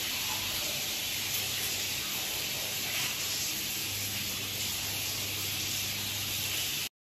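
Steady hiss of shower water running in a tiled bathroom, cutting off suddenly near the end.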